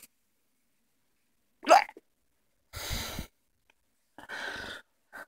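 A person's hiccup, a single sharp loud gulp about a second and a half in, from a persistent bout of hiccups. It is followed by two longer breathy sounds and a brief one near the end.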